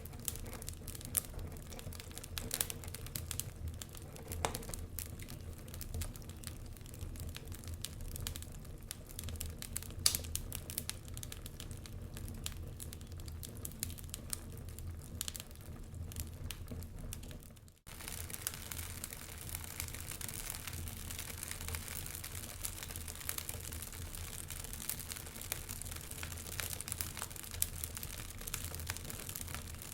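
Wood fire crackling, with scattered sharp pops over a steady low rumble. The sound drops out for a moment about two-thirds of the way through, then comes back with more hiss in the crackle.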